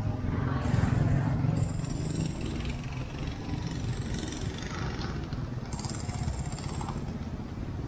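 Street traffic: motor scooters riding past close by, their engines running, loudest in the first couple of seconds.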